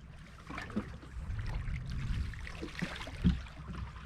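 Water lapping and splashing against a small boat's hull, with a steady low rumble underneath and a few light knocks.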